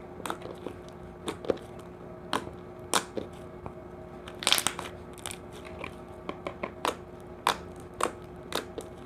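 Glossy slime being stretched and squeezed by hand, giving off irregular sharp clicks and pops, with a small cluster about halfway through.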